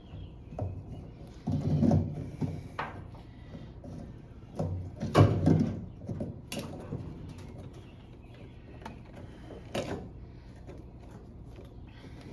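Irregular clunks, scrapes and squeaky rubbing of metal and plastic parts being handled during work on a car's fuel tank and pump assembly. The loudest clunks come about two seconds in and about five seconds in, with a smaller knock near ten seconds.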